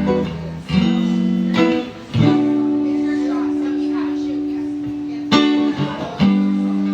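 Guitar chords strummed and left ringing, one chord held for about three seconds before the next strums, as a song gets under way.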